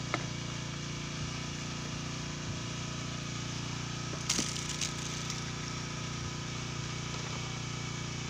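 A fishing boat's engine running steadily at low revs, with a knock just after the start and a brief clatter of knocks about four seconds in.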